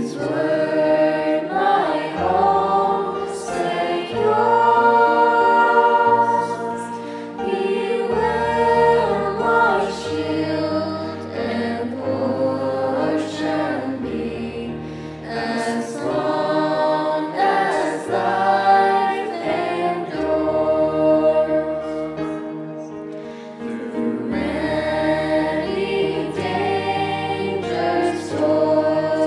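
A choir singing sacred music, with long held bass notes underneath that move in steps from one pitch to the next.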